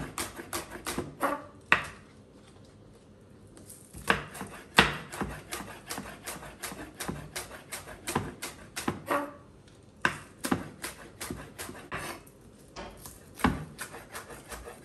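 Chef's knife chopping green onions on a wooden cutting board: quick runs of sharp knife strikes on the board, broken by a few short pauses.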